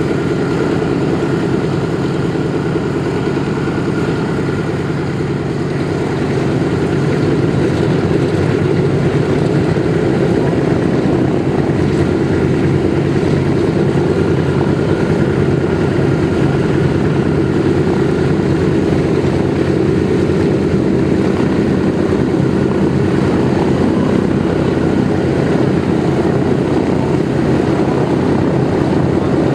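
Douglas DC-3's two Pratt & Whitney R-1830-92 Twin Wasp radial engines running steadily with propellers turning, getting slightly louder about six seconds in.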